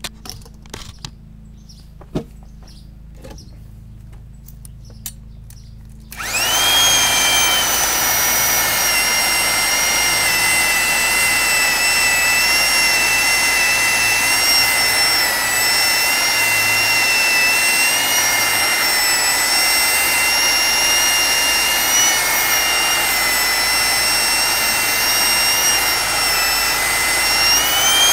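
Homemade electric chainsaw driven by an 8-amp Porter Cable half-inch drill motor, after a few handling clicks. About six seconds in it switches on with a steady high whine as the chain cuts into a log, the pitch sagging slightly under load and rising near the end as the cut lets go. The motor turns the chain too slowly, so the teeth fill up with wood and the cut slows.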